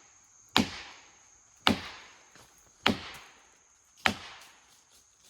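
Felling wedges being driven into the back cut of a poplar tree with four hard blows about a second apart, each a sharp crack with a short ringing tail, to tip the tree toward its fall.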